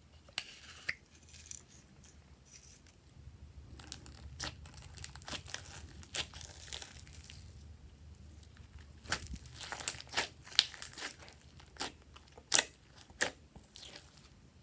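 Hands kneading and stretching glossy slime: irregular sticky pops and crackles, thickening in the second half, with a few sharper, louder pops.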